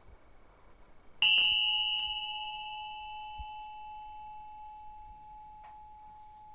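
A bell-like metal tone struck once about a second in, then ringing on and slowly fading over several seconds.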